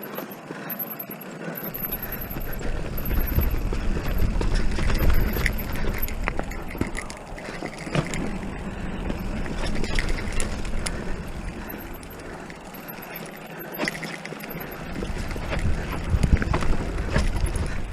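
Haibike electric mountain bike riding over a rocky dirt trail: tyres rolling on dirt and stones, with repeated knocks and rattles from the bike over rocks. Wind rumbles on the microphone for most of it, easing off twice.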